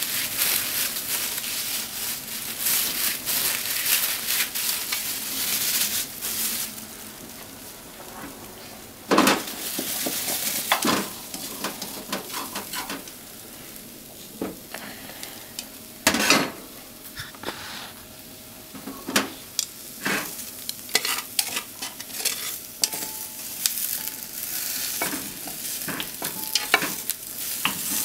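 Potato and onion slices sizzling in a frying pan while being stirred with long wooden cooking chopsticks. The sizzle is loudest for the first six seconds, then quieter, with many sharp knocks of the chopsticks against the pan.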